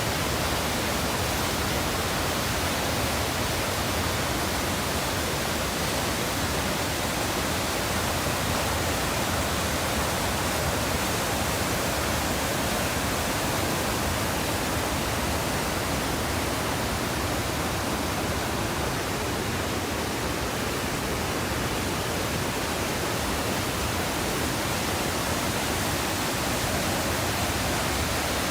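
Swift Current Falls rushing: a steady, unbroken roar of falling water.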